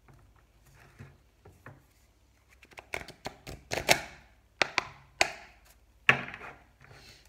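A tarot card deck being handled and shuffled by hand: irregular sharp taps and snaps of the cards, sparse at first, then louder and closer together from about halfway, with the loudest snaps near the middle and a little before the end.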